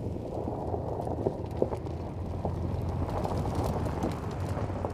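2024 Toyota Land Cruiser driving slowly over loose gravel: its engine runs steadily at low speed while the tyres crunch over stones, with scattered clicks and pops of gravel.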